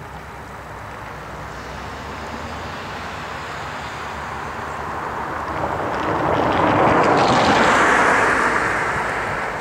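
EMD GP38-2 diesel locomotive approaching under power, its 16-cylinder two-stroke engine's rumble growing steadily louder to a peak about seven to eight seconds in, then easing a little.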